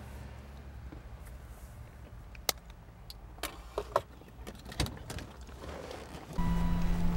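Car door being handled: a few sharp clicks and knocks. About six seconds in, a louder steady hum with a high held tone starts.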